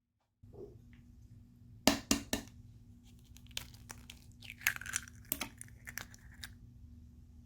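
Crinkling, clicks and knocks of things being handled, over a low steady hum that starts about half a second in. A cluster of sharp clicks about two seconds in is the loudest part.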